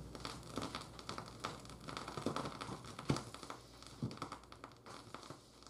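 Vinyl record surface noise from a stylus in the groove: faint, irregular crackles and pops over a low hum, with a couple of louder pops about three and four seconds in.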